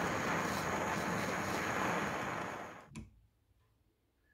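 Handheld gas torch flame hissing steadily, then shut off between two and three seconds in, followed by a single sharp click.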